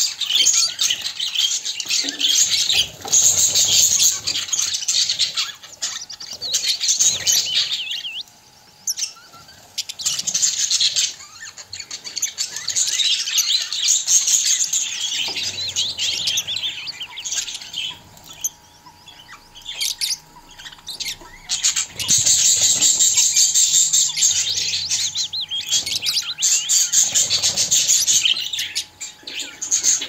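A flock of budgerigars chattering and chirping in dense, overlapping bursts, with brief lulls about 8 and 18 seconds in.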